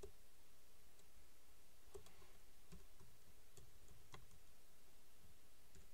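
Faint, scattered clicks of a computer keyboard and mouse: about six single keystrokes and clicks, irregularly spaced, with no steady rhythm.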